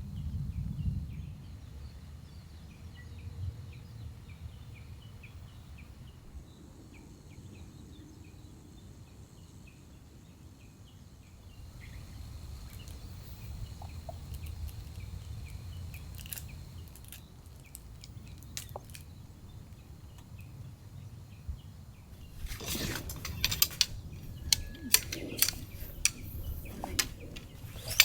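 Faint birds chirping over a low steady rumble; about three-quarters of the way through, a run of sharp clicks and clattering starts and keeps going.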